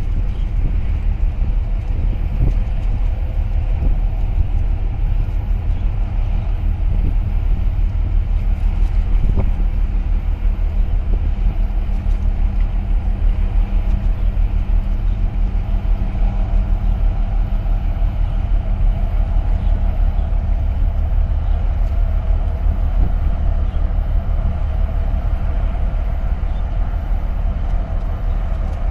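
Deep, steady rumble of the 260 m container ship OOCL Savannah under way as she passes close by, with wind buffeting the microphone.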